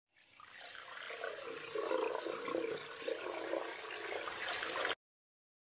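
Water spraying from a kitchen faucet's shower-head sprayer into a stainless steel sink. It swells over the first second and stops abruptly about five seconds in.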